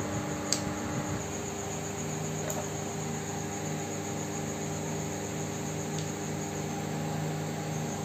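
A steady mechanical hum with hiss and a few held tones, broken by a sharp click about half a second in and a fainter click about two and a half seconds in.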